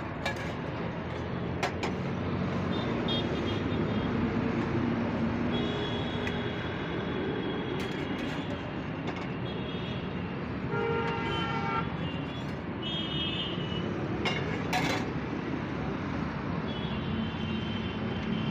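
Steady roadside traffic noise with vehicle horns honking several times, each a held tone lasting one to two seconds. A few sharp clinks of a steel spatula against the frying pan.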